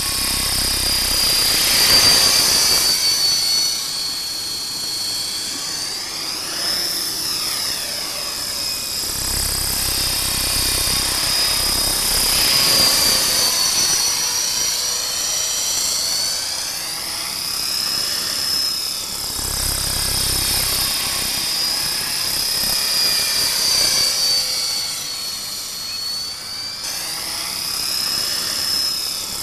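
Electric RC model helicopter (Align T-Rex 450 V2) with a five-blade main rotor and four-blade tail rotor in flight: a steady high whine over rotor blade noise, its pitch and loudness rising and falling as it moves about.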